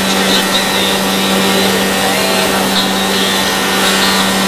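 IIDA moulder running steadily, milling a wooden trim profile at a slow feed for a finer finish, together with the mill's dust collection: a continuous whir with a steady low hum underneath.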